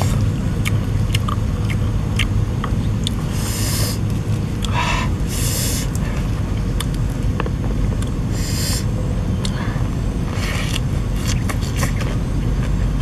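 Short bursts of crisp crunching and rustling, four or so, with small clicks between them, as lettuce leaves are handled, torn and chewed. Under it runs a steady, loud low rumble.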